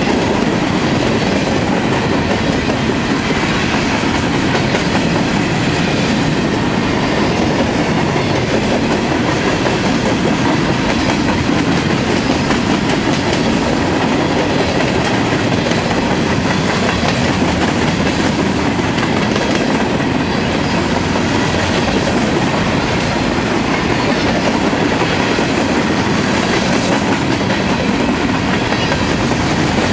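Freight train cars rolling past at close range: a steady noise of steel wheels running on the rails, unbroken throughout.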